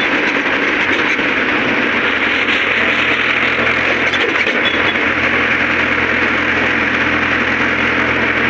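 Tractor's diesel engine running steadily under way, heard from the driver's seat close to its vertical exhaust, with a dense steady engine clatter.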